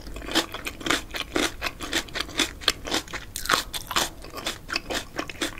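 Close-miked chewing of a mouthful of food with the mouth closed: wet, crunchy bites come about three times a second in a steady rhythm.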